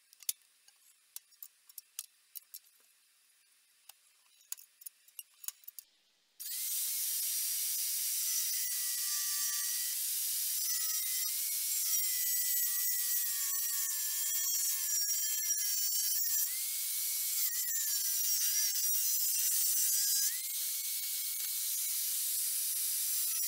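Angle grinder with a cutting disc cutting a slot into a bent steel plate: a loud, steady hiss with a high whine that wanders and dips in pitch as the disc takes load. It starts suddenly about six seconds in; before it there are only faint clicks and knocks of metal being handled.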